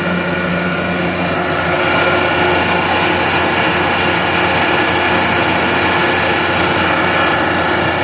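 Gardner Denver Electra-Screw rotary screw air compressor running just after restarting automatically at its reset pressure, building pressure back up: a steady dense machine hum and whir with several held tones, growing a little louder and higher about two seconds in.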